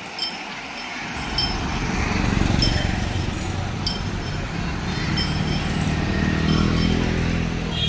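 Bright metallic clinks ringing out about every second and a quarter from the metal gear on a file of walking elephants. Under them is the engine hum of passing motor traffic, an auto-rickshaw and motorcycles, which swells after the first second and again near the end.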